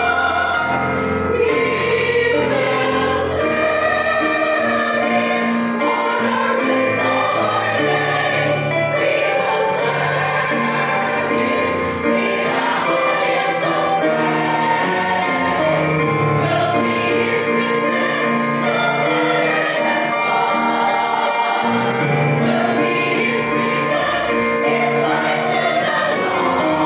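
Women's choir singing the chorus of a gospel song, with piano accompaniment.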